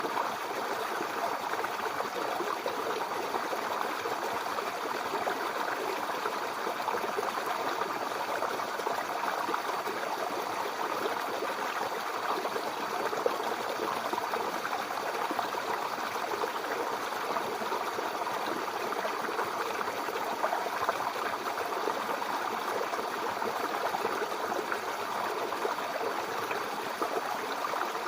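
Small brook babbling over stones, a steady flowing burble of water.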